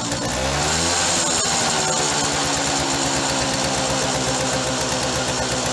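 Freshly rebuilt two-stroke motorcycle engine running: the revs climb in the first second, then it holds a steady fast idle with an even firing pulse. It runs rich on a heavy premix oil ratio while the new rings break in.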